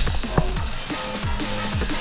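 Electronic dance music with heavy bass drops and a fast drum beat.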